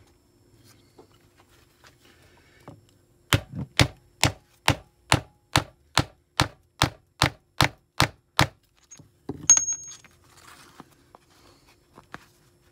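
A hammer striking a hand grommet-setting tool about thirteen times in an even rhythm, a little over two blows a second, flaring a 1/4-inch brass grommet through canvas. A second or so after the blows stop, a single louder metal clink with a short high ring.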